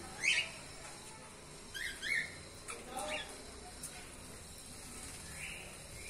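Budgerigars giving short, scattered chirps, the loudest about a third of a second in and a few more spread over the following seconds.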